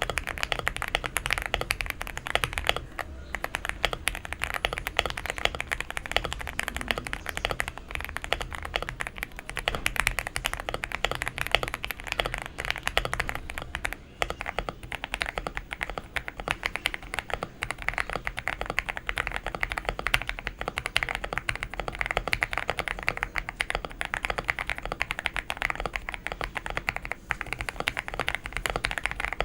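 Custom-modded mechanical keyboard typed on fast and without pause in a sound test, with switches including Gateron Oil King and thick PBT keycaps. The case is tape-modded, with foam under the PCB and polyfill, to give a fuller, deeper sound.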